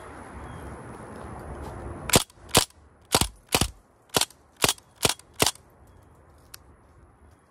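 DPMS Panther Arms AR-15 replica CO2 BB air rifle firing about eight separate sharp shots in quick succession, roughly two a second, starting about two seconds in.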